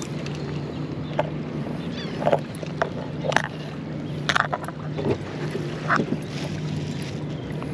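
Footsteps crunching on a beach of crushed shell, about one step a second, over a steady low motor hum.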